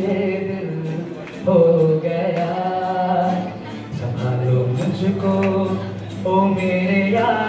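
A man singing into a microphone, with acoustic guitar accompaniment, in held, sliding sung phrases broken by short pauses.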